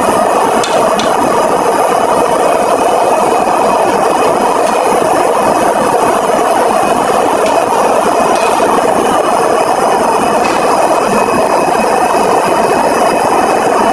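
A large pot of whole eggplants at a rolling boil, making a steady, loud rushing noise that does not let up.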